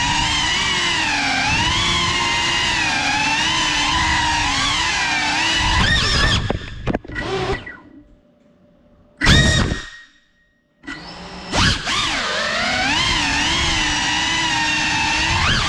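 GEPRC Cinelog35 cinewhoop's ducted motors and props whining, the pitch rising and falling with throttle. About six seconds in the throttle is chopped and the whine almost vanishes during a flip, apart from one short burst of power near nine seconds. The steady whine returns at about eleven seconds.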